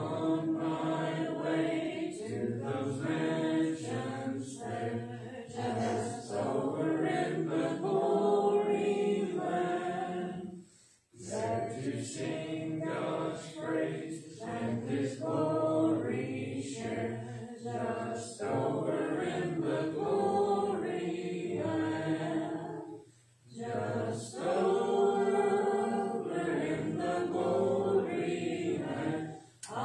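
A congregation singing a hymn a cappella, with no instruments, pausing briefly twice between lines.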